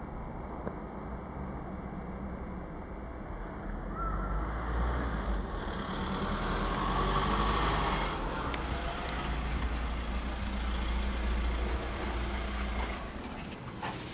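Light propeller aircraft engine droning overhead. It grows louder from about four seconds in, is loudest around the middle, and fades away near the end.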